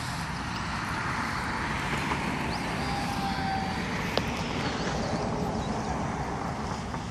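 Nanoplanes Babyshark RC plane's electric motor and propeller running in flight on a 4S battery, a steady buzz that grows a little louder through the middle and drops off near the end, with one sharp click about four seconds in.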